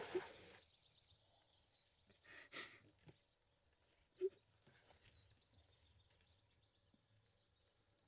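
Near silence: faint woodland ambience with a few high, distant bird chirps. A soft breath is heard about two and a half seconds in, and a brief low note about four seconds in.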